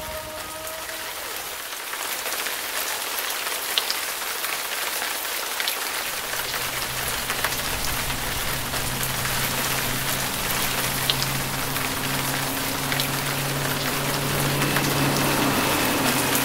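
Steady rain falling, an even hiss with faint scattered drop ticks. About six seconds in, a low steady drone joins it.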